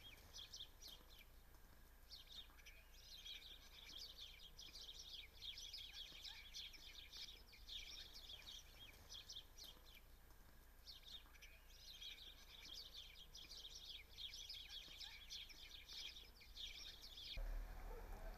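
Faint outdoor chorus of small birds chirping and twittering rapidly, in two long bouts with a short break about halfway through. The chirping stops abruptly near the end.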